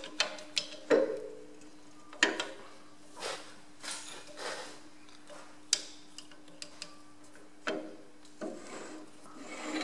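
Hand tools working steel on a Ferguson FE35's draft link spring assembly. A flat screwdriver scrapes and rubs against the linkage, and there are scattered sharp metal clicks and knocks as a spanner is set on the outer nut to take up the spring's end movement. A faint steady hum runs underneath.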